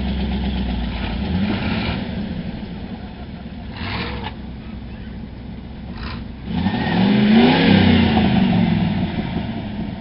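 Pickup truck engine running stuck in deep mud, then revving up hard and falling back about seven seconds in. Two brief rushes of noise come a couple of seconds apart before the rev.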